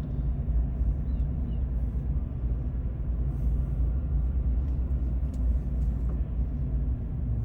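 Steady low rumble of a truck driving, engine and tyre noise heard from inside the cab.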